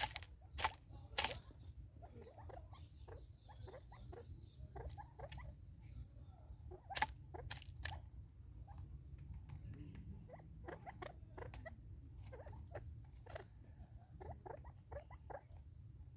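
Natal spurfowl pecking at food, a quick irregular run of small taps and clicks. A few louder pecks come in the first second and a half and again about seven seconds in, over a low steady rumble.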